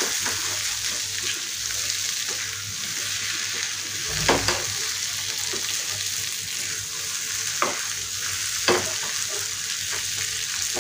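Okra coated in gram flour and spices sizzling in a non-stick kadai, moistened with a few sprinkles of water, as a spatula stirs and scrapes through it. There are a few knocks of the spatula against the pan, the loudest about four seconds in.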